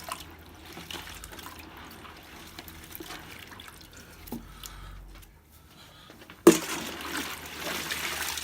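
Small splashes, drips and clicks as live crawfish are stirred and picked through in a tub of rinse water. About six and a half seconds in, a loud rush of water starts abruptly and keeps going.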